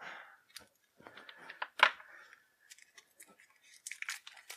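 Hobby knife slitting the plastic shrink wrap on a deck of cards, then the film crinkling and tearing as it is peeled off, in small irregular clicks and rustles with one sharp snap about two seconds in.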